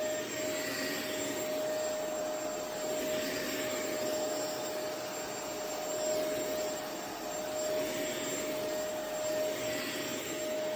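Hoover Power Scrub Elite carpet cleaner running while shampooing carpet: a steady motor and suction noise with one steady whine.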